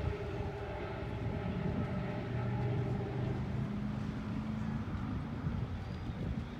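Low, steady drone of the SeaLion 2000 catamaran ferry's engines as it manoeuvres to dock. The hum grows louder about a second and a half in and eases back near the five-second mark.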